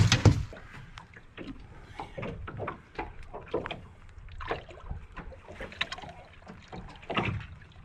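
Knocks and rustles of handling on a small open boat, with a loud thump right at the start as a freshly landed ling is gripped in the landing net on the deck, then scattered light clicks and knocks.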